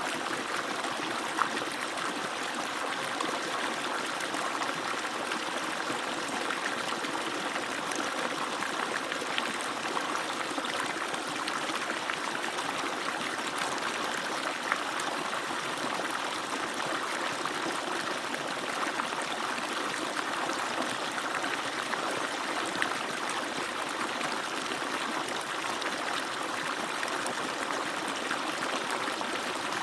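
Water pouring steadily from an agricultural water pump, an even, unbroken rush.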